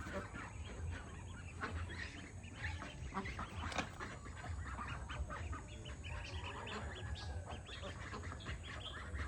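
A large flock of farmed ducks calling over one another: a dense, continuous chatter of many short overlapping quacks and calls.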